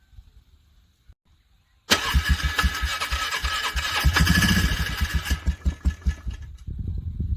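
An ATV engine cranking on its starter in extreme cold, struggling to turn over. About two seconds in it starts with a fast, uneven chugging that goes on for about five seconds, then stops without the engine catching.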